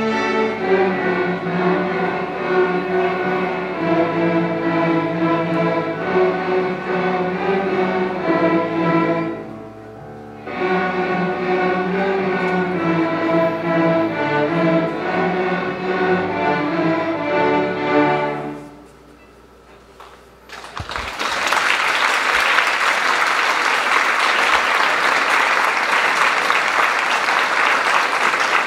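School string orchestra of violins and cellos playing a piece, with a short break about a third of the way in; the music ends, and after about two seconds of quiet the audience bursts into steady applause.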